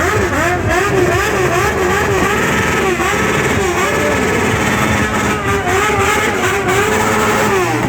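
Motorcycle engine revved over and over, its pitch rising and falling in quick arcs about two to three times a second without letting up.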